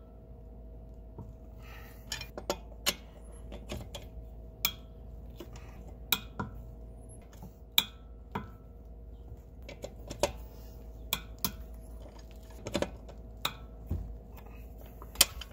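Breaker bar and socket clinking against the wheel's lug nuts as they are broken loose one by one: a string of irregular sharp metallic clicks, one or two a second, over a faint steady hum.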